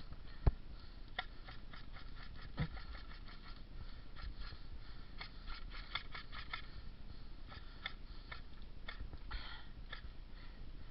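A sharp knock about half a second in, then scattered irregular clicks and taps, thickest in the first half.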